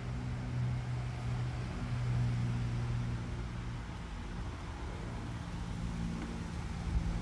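Steady low mechanical hum over a faint hiss, with a few soft low bumps near the end.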